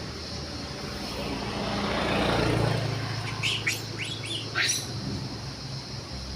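A passing vehicle's noise swells to a peak about two and a half seconds in and then fades over a low steady hum. Several short, high, bird-like chirps come in quick succession just after the peak.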